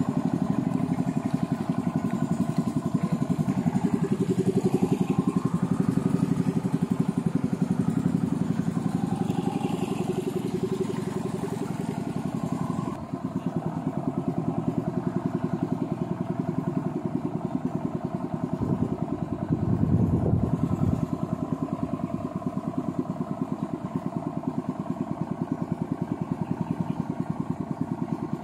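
Small engine of a motorized wooden boat (motor bangka) running steadily at cruising throttle, with a fast, even firing beat. It briefly gets louder a little past the middle.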